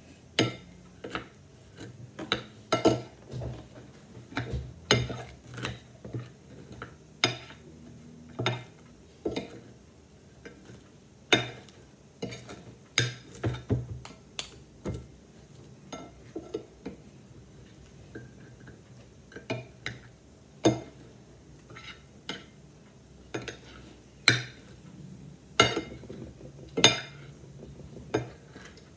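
Two metal spoons clinking and scraping against a ceramic plate as ice cream is chopped and folded, in irregular sharp clinks, some much louder than others.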